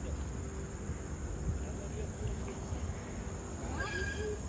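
Insects, crickets or cicadas, chirping in a steady high-pitched chorus, with a brief higher call near the end.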